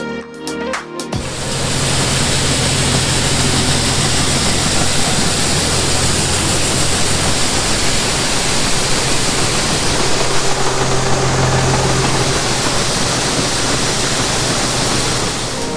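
Grain unloading auger running with a steady low hum under a loud, even rush as shelled corn is moved out of the bin into a truck. It cuts in about a second in and gives way to music just before the end.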